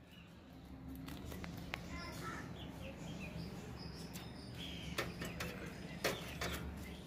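Rabbit chewing cabbage leaves, a few crisp crunches and clicks, with birds chirping briefly in the background over a faint low hum.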